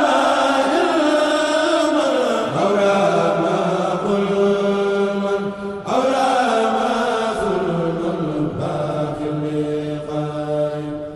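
A man chanting a Sufi religious poem in long, drawn-out phrases, holding each note and sliding down between them. One phrase ends and a new one begins about six seconds in, and the voice fades near the end.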